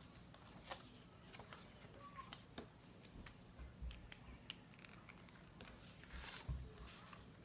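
Near silence: room tone with a faint low hum and scattered faint clicks and rustles.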